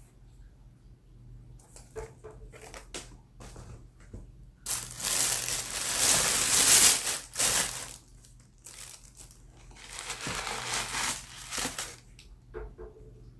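Shoe packaging being crumpled and handled, two long stretches of crinkling, the first and louder about five seconds in and a second one around ten seconds, with small handling clicks between.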